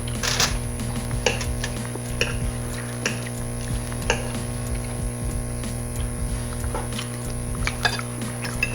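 Eating at a table: cutlery clicking and scraping on plates, with wet chewing sounds, in short irregular clicks over a steady background hum.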